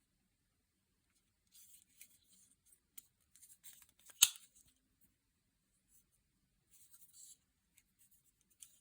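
Automatic pocket knife being handled, with soft rubbing and small clicks. About four seconds in comes one loud, sharp snap of its spring-driven blade mechanism.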